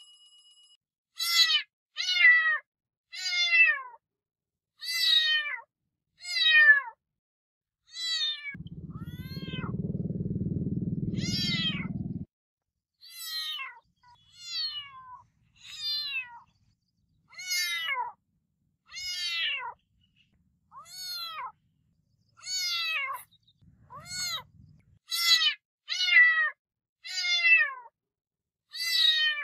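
Domestic cat meowing over and over, about twenty short meows that each fall in pitch. A low purr runs under the meows for a few seconds about a third of the way in, and again faintly near the end.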